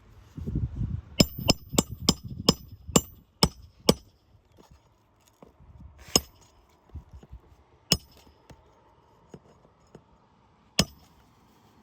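Hammer striking roofing nails into asphalt shingles: a quick run of about eight sharp, ringing metal blows, then three more single strikes spaced a couple of seconds apart.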